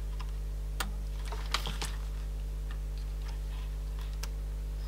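A few small, scattered clicks and taps from handling a Walkman's cassette mechanism while its new drive belt is being checked for tension, over a steady low electrical hum.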